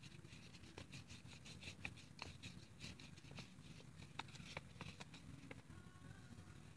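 Near silence: room tone with faint scattered clicks and light scratching of a paintbrush working on paper.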